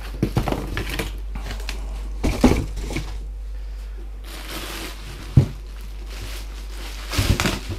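Unpacking noises: cardboard box and packing handled with scattered clicks and knocks, then the clear plastic wrap on a welding machine rustling and crinkling as it is lifted out, with one dull thump about five seconds in.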